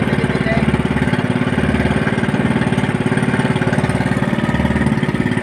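Small boat engine running steadily at a constant speed, with a fast, even firing rhythm.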